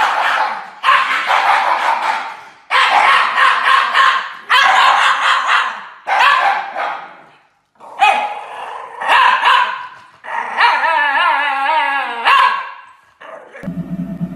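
Shiba Inu dogs barking and howling with heads thrown back, in a run of loud calls about a second or so each, with a long wavering howl near the end. Just before the end a low steady machine hum starts.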